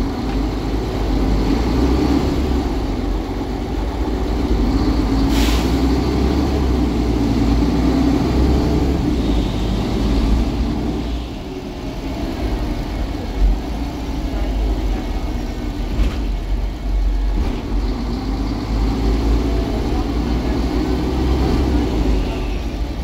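Cabin sound of a Mercedes-Benz Conecto G articulated city bus under way: its 12-litre OM 457 LA diesel engine running steadily with drivetrain and road rumble. A short sharp hiss of air about five seconds in.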